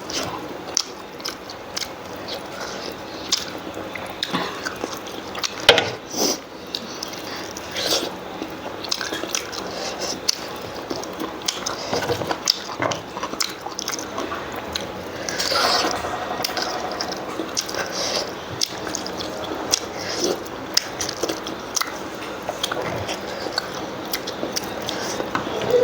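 Close-miked eating: chewing and wet mouth smacks over lung curry and rice, heard as many short, irregular wet clicks.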